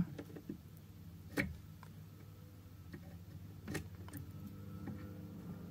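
A few light clicks and ticks of small side-cutter pliers working at a connector on a power converter's circuit board, the two sharpest about a second and a half in and near four seconds, over a low steady hum.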